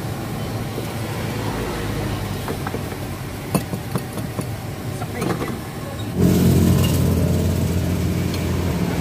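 Street traffic by a roadside food cart, with a few light clinks of utensils against bowls in the middle. About six seconds in, a motor vehicle engine close by suddenly gets louder and keeps running.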